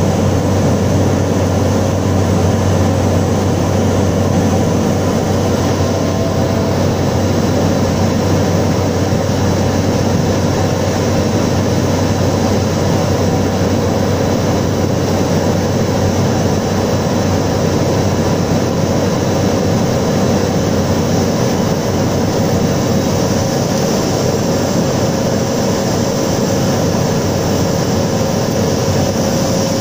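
Single-engine light aircraft's piston engine and propeller, heard from inside the cockpit, running with a steady drone during the approach to landing.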